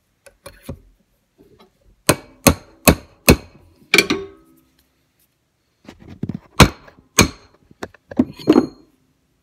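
Hammer tapping a punch set in the neck of a .30-06 brass cartridge casing clamped in a bench vise, expanding the case mouth: a quick run of five sharp metallic taps, a pause, then a few more.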